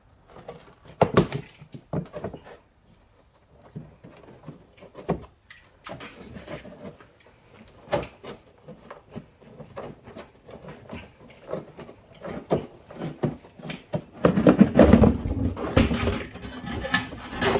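Irregular clicks, knocks and rattles of hands and tools working at a car's rear brake, busiest and loudest for a few seconds near the end.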